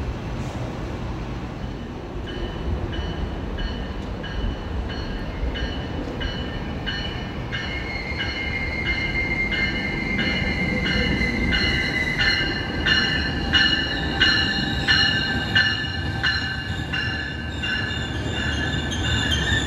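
Metrolink commuter train pulling into the station. Its bell rings about one and a half times a second and grows louder as the lead car comes alongside. A steady high squeal from the wheels or brakes runs through the middle, over the rumble of the train rolling in.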